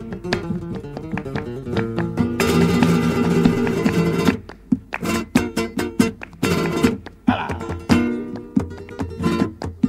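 Flamenco guitar playing a bulerías interlude between sung verses, with a stretch of rapid strumming near the middle. Sharp handclaps (palmas) mark the bulerías rhythm alongside the guitar, most plainly in the second half.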